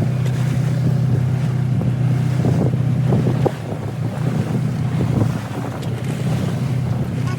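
Boat engine running at a steady drone, with wind buffeting the microphone and waves splashing; the overall level drops about halfway through.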